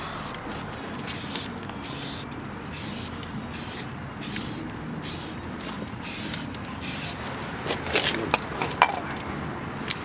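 Aerosol spray can sprayed in about ten short hissing bursts, one every half second to a second, followed by a few sharp clicks near the end.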